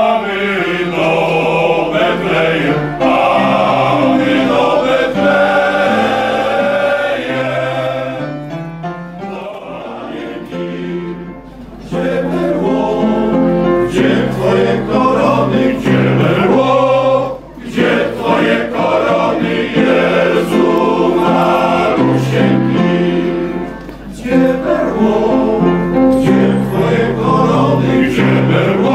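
Male choir singing in several parts. It dies down to a soft passage about eight seconds in and swells back up at about twelve seconds, with short breaths between phrases.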